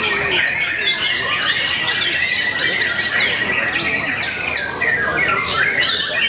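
White-rumped shamas and other contest birds singing at once: a dense chorus of overlapping whistles, chirps and trills, with one long even trill held through the first half.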